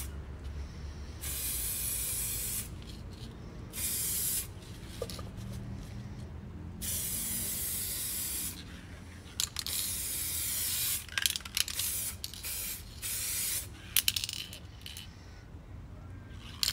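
Aerosol spray paint can hissing in repeated bursts as enamel is sprayed on: the first few sprays last a second or two each, then come several short ones. A few sharp clicks fall between the sprays.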